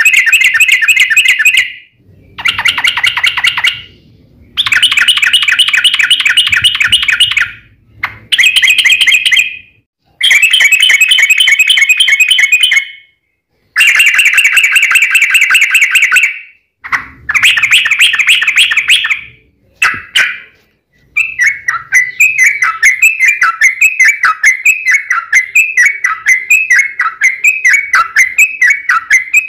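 Sooty-headed bulbul (trucukan) singing loudly in fast, chattering trilled phrases of one to three seconds with short pauses between them, then breaking into a continuous run of quick repeated notes in the last third.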